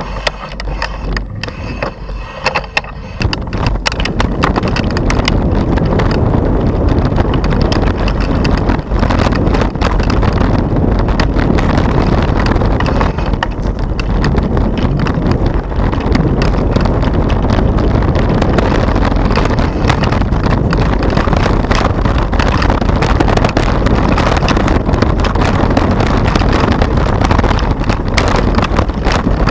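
Wind buffeting the microphone of a handlebar-mounted camera on a mountain bike, with constant clattering and knocks as the bike and mount jolt over a rough dirt singletrack. It is quieter for about the first three seconds on smooth tarmac, then loud and rattling once on the trail.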